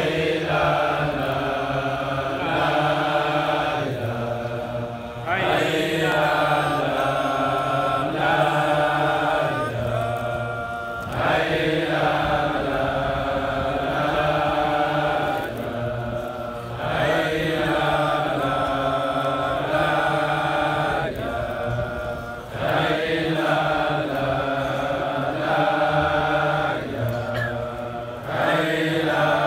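A group of men chanting a Sufi dhikr in unison, repeating the same melodic phrase about every five to six seconds with a short break between phrases.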